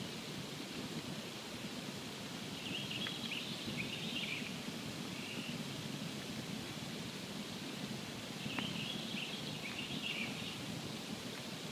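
Campfire burning with a steady low rustling hiss and an occasional sharp pop. Two short bursts of high twittering come through, about three and nine seconds in.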